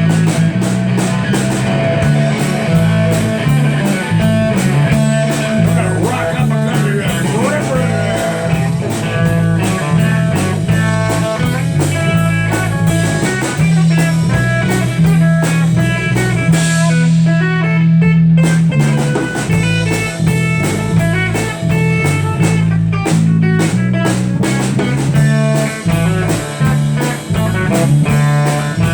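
Live band playing an instrumental break in a bluesy country-rock song: an electric guitar lead over a walking bass line and a drum kit keeping a steady beat.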